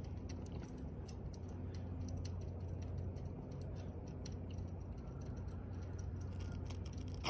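A lit firework fuse burning down, a faint steady crackle of small ticks over a low hum, before an M-80 goes off.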